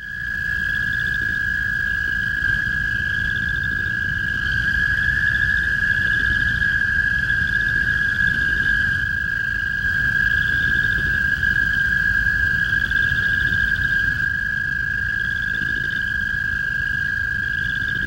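American toad trilling: one long, even, high-pitched musical trill held without a break, the male's breeding call. A low rumble of background noise runs underneath.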